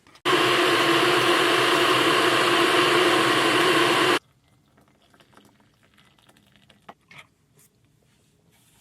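Loud, steady rushing of water while tea is being made, with a hum running through it, starting abruptly and cutting off suddenly after about four seconds. A few faint clicks follow.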